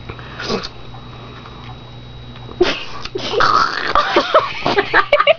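A woman's breathy, strained vocal noises, gasps and whimpering sounds, in reaction to the intense sourness of a Warheads candy; quiet at first, then a run of louder bursts from about two and a half seconds in.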